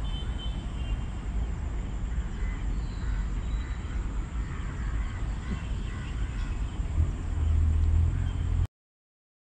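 Wind buffeting the microphone: a steady, gusting low rumble that swells near the end and then cuts off suddenly.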